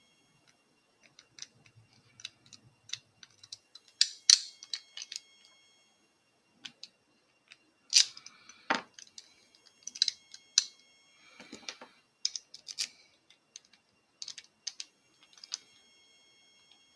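Sharp metallic clicks, clinks and rattles of a Mul-T-Lock Integrator padlock and its key being handled, some strikes leaving a brief metallic ring; the loudest knocks come about four and eight seconds in.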